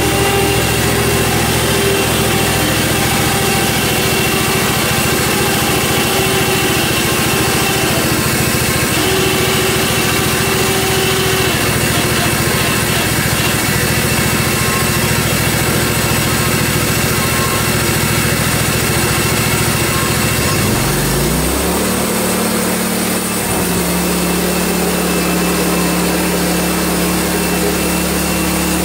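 Hud-son Homesteader HFE30 sawmill's engine running steadily while warming up, then throttled up about 21 seconds in, its pitch rising over a couple of seconds to a steady higher speed.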